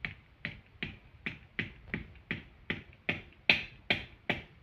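Steady hammer blows, about three a second, on a metal TV wall-mount bracket held against a cement wall while it is being fixed in place.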